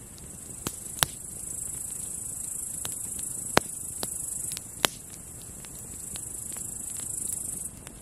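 Wood campfire crackling, with scattered sharp pops, three of them loud, over a steady high buzz of grasshoppers chirring that swells in just after the start and stops suddenly near the end.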